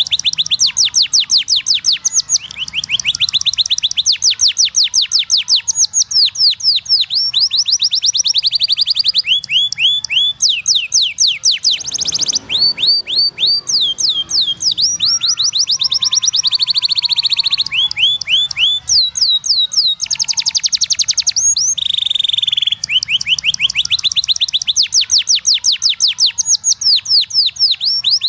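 Domestic canary singing a continuous song of high, fast trills. Each phrase is a rapid run of identical quick down-sweeping notes, switching to a new trill every second or two.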